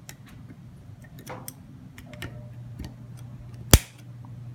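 Small metallic clicks and ticks of a circlip being fitted onto an internal gear hub's axle, with one sharp, much louder snap near the end.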